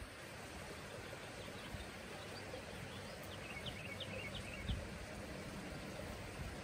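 Outdoor ambience: steady low background noise with a faint rumble. A short run of high bird chirps comes about three and a half seconds in, followed by a soft low thump.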